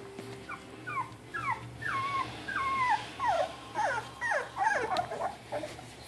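Two-week-old Labrador retriever puppies whimpering: a string of short, high whines, each falling in pitch, about two a second, crowding together near the end.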